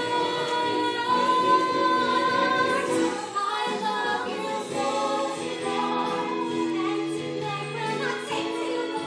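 Female voices singing a show tune over instrumental backing, with long held notes, the first held for about three seconds before the melody moves on.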